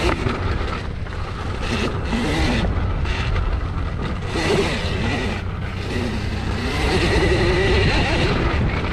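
Small electric dirt bike riding a woodland trail: the motor's whine rises and falls with the throttle over a steady rumble of wind buffeting and tyres on dirt.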